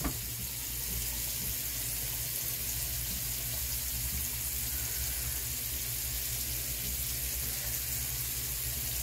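Steady hiss with a low hum underneath, unchanging throughout.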